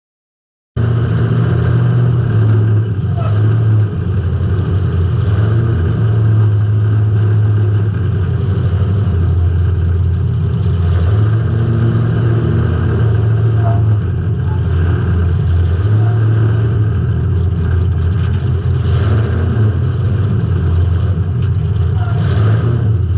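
A car's engine running loudly, picked up by a camera inside the car, its low tone shifting slightly up and down. It cuts in suddenly just under a second in.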